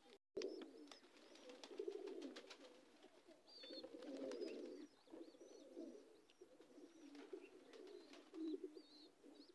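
Faint, repeated low cooing of domestic high flyer pigeons, with a few thin high chirps.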